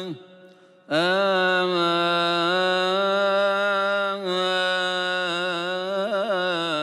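Solo male cantor chanting a Coptic Good Friday psalm verse unaccompanied. After a short breath pause, he sings long, drawn-out held notes with a wavering melismatic ornament near the end.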